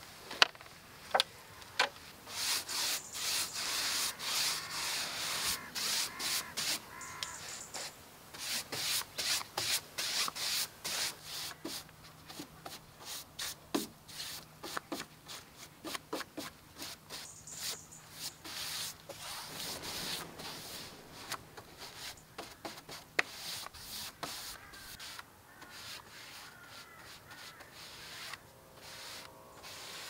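Paintbrush bristles scrubbing dark wood stain onto vertical wooden cladding boards in quick back-and-forth strokes, quieter in the last third. A few sharp taps near the start, the brush knocking against the plastic paint tray.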